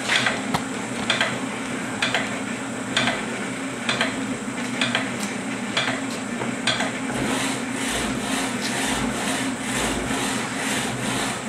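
Armstrong-Blum Marvel No. 2 draw-cut power hacksaw running slowly on a flat belt from a gear-reduction motor, with a steady hum under it. At first its reciprocating arm clicks about once a second. From about seven seconds in, once the frame is lowered and the blade bites into the metal, it rasps in a steady rhythm about twice a second.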